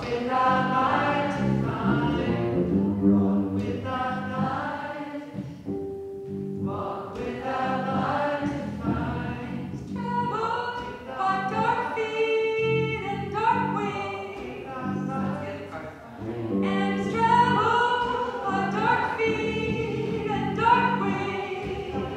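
Many voices singing a layered vocal sound collage: a roomful of people repeating overlapping sung parts, led by a woman singing into a microphone, with a few long held notes over the texture.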